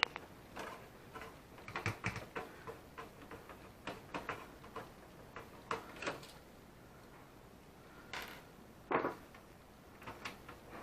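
Irregular light clicks and taps of small tape-deck mechanism parts and tools being handled, with a cluster of clicks about two seconds in and a sharper knock about nine seconds in.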